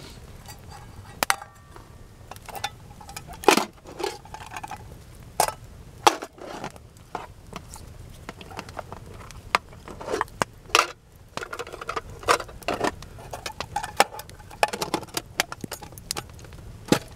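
Metal cup and its lid clinking, knocking and scraping as they are handled, with sharp clicks and crackles throughout from the wood fire.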